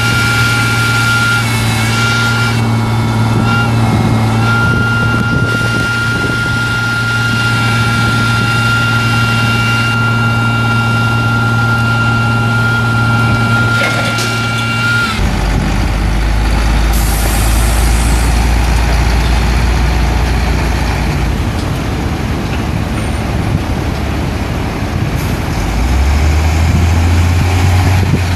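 International DT466 turbo diesel of a digger derrick truck running with the PTO engaged, the hydraulic pump giving a steady whine that dips briefly a few times as the boom works, then stops about halfway through. The engine then settles to a lower idle, with a short air hiss, and speeds up near the end as the truck pulls away.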